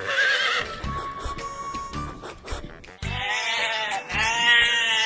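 A goat bleating in two wavering calls over music with a steady beat, about three seconds in. The tail of a horse's whinny fades out at the start.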